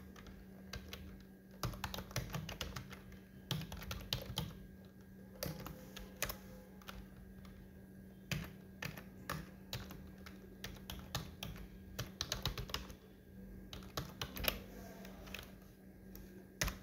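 Typing on a computer keyboard: quick, uneven runs of key clicks with short pauses between words, over a faint steady low hum.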